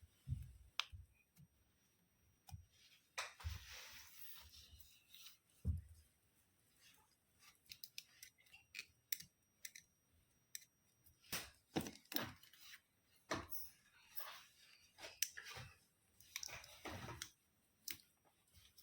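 Faint, scattered clicks, taps and short rustling scrapes of small hand work, irregular and unrhythmic.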